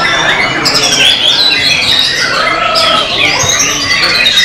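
White-rumped shama (murai batu) singing a rapid, varied song of clear whistles, quick rising and falling slurs and harsher chattering notes, with other birds' song overlapping.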